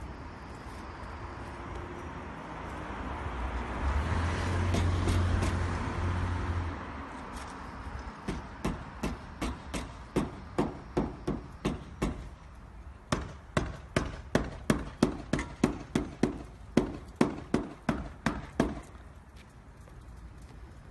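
A vehicle goes by, then a hammer strikes in a steady run of sharp blows, about three a second, for roughly ten seconds, stopping shortly before the end.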